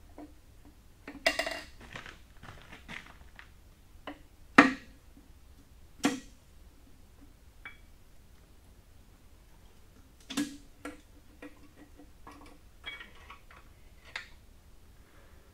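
Scattered metal clanks and clinks of tools and engine parts as a connecting rod cap and piston are worked loose on a torn-down 6.4 Powerstroke diesel engine block. The loudest knock comes about four and a half seconds in, with others a few seconds apart.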